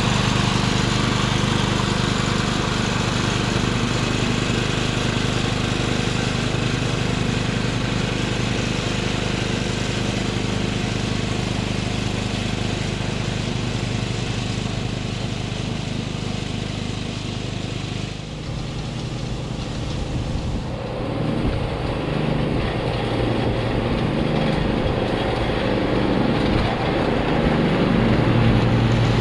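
Husqvarna front-deck ride-on mower running steadily with its cutting deck engaged, mowing tall rough grass and weeds. The engine grows a little quieter as the mower moves away, its sound shifts about two-thirds of the way through, and it gets louder again near the end as the mower heads back.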